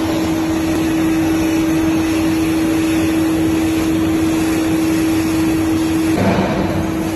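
Suspended-ceiling linear strip roll forming machine running: a steady mechanical hum carrying a held tone that stops about six seconds in, followed by a short rush of noise.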